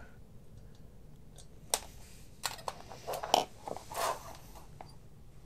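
A few faint, scattered clicks and a light scrape from handling a soldering iron as it is lifted off a brass heat-set insert it has just melted into a 3D-printed ABS part.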